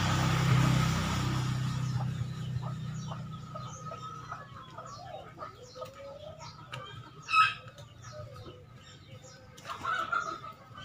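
Chickens clucking softly, with scattered short clicks and one sharp, louder note about seven seconds in. A loud rushing noise with a low hum fills the first two seconds.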